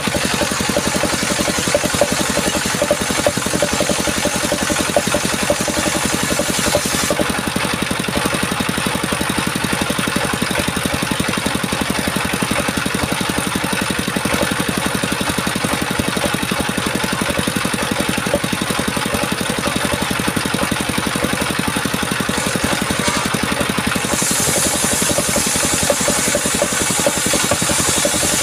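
Power saw running steadily, its high hiss dropping about seven seconds in and returning near the end.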